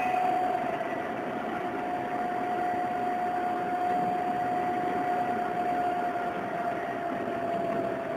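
Running sound inside an Odakyu 8000 series electric train with field chopper control: steady rumble of the car in motion with a clear whine that sinks slowly in pitch.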